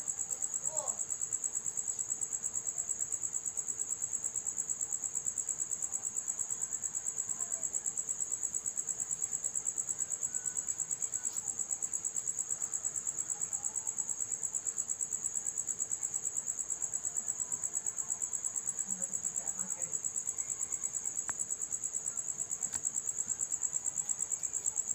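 Crickets trilling steadily: a high-pitched, fast, even pulsing that does not let up.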